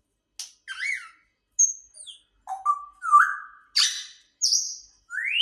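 African grey parrot calling in a quick string of short whistles, chirps and clicks, some sliding up or down in pitch, with silence between them.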